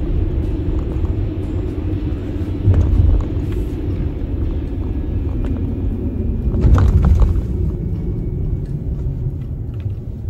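Steady low road and engine rumble inside a moving car's cabin, with two short louder bursts of noise, one about a quarter of the way through and one about two-thirds of the way through.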